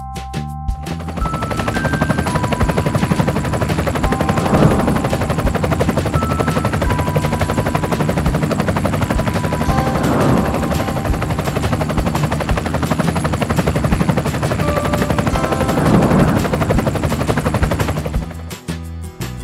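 Helicopter rotor sound, a fast steady chopping that swells three times, over light background music with short plinking notes.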